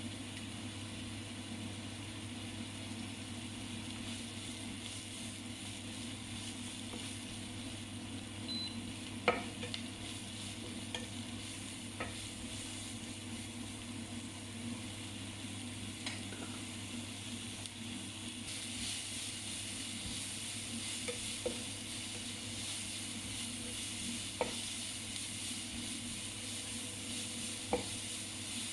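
Kottu roti ingredients sizzling on a hot flat griddle over a steady low hum, with a few separate sharp metal clinks. The sizzle grows louder and brighter about two thirds of the way through.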